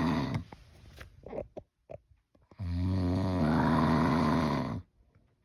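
Loud snoring: the end of one snore right at the start, small clicks and breaths, then one long, deep buzzing snore from about two and a half to nearly five seconds in.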